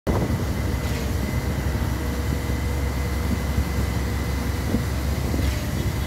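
Concrete pump running steadily as it pumps concrete through the boom's end hose: a continuous low engine rumble with a thin, steady high whine over it.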